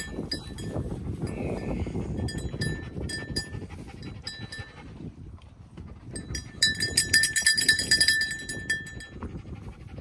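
Small bell on a hunting dog's collar jingling as the dog moves about, in scattered jingles at first and then shaking hard for a couple of seconds near the end.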